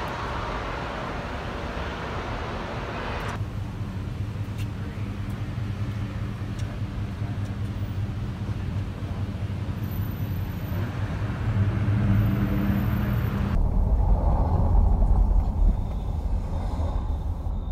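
City traffic ambience across several cuts: steady street noise with a low hum of vehicle engines. In the last few seconds it gives way to the heavier low rumble of a car driving along the street.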